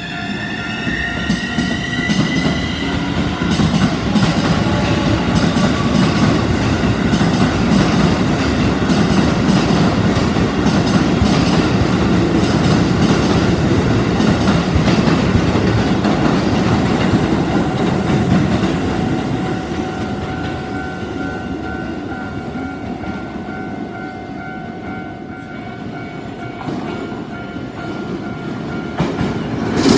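Electric commuter train passing over a level crossing: its motor whine rises in pitch over the first few seconds as it accelerates, then the wheels rumble and clatter on the rails, fading after about twenty seconds.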